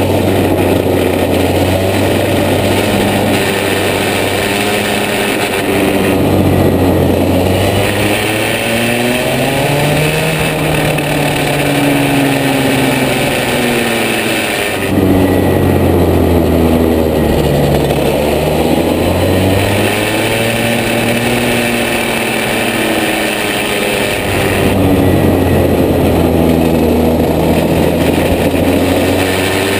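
Rotax 125cc two-stroke single-cylinder kart engine at racing speed, its revs climbing and falling several times as the kart accelerates out of corners and slows for the next, with a sudden jump in throttle about halfway through.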